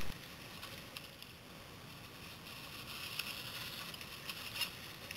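Mountain bikes rolling over a trail of dry fallen leaves: a faint rustle and crackle of tyres on leaves with a few sharp clicks. It gets louder as a rider passes close, about three to four and a half seconds in.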